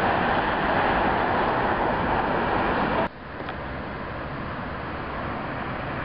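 Steady outdoor road-traffic noise, a continuous rush that drops suddenly to a quieter level about three seconds in.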